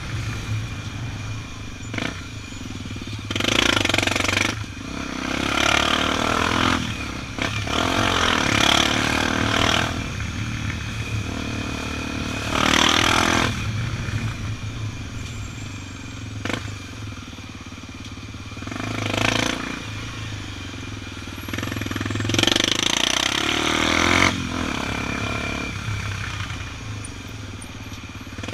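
Honda XR 250 Tornado's single-cylinder four-stroke engine running steadily while riding on the road. A louder rushing sound swells up for a second or two about six times.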